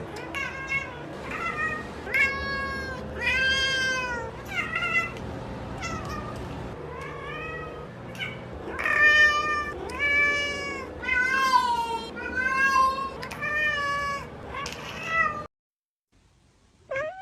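Cat meowing over and over, long arching meows coming about once a second. The run cuts off suddenly near the end, and one more meow follows shortly after.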